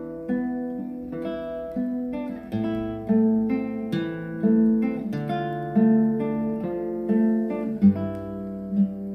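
Acoustic guitar playing a run of plucked notes and strums, each ringing and fading, played back through a high-end hi-fi system.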